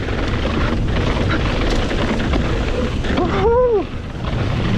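Mountain bike descending a steep, rough dirt trail: wind rushing over the camera microphone, with the tyres rumbling and the bike rattling and knocking over bumps.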